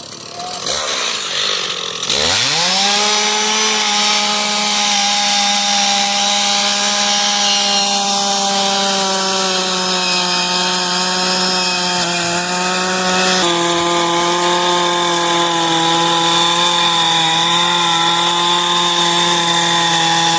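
Chainsaw revving up about two seconds in and held at a steady high throttle while cutting into the wood of a bear carving, with a slight change in its note about two-thirds of the way through.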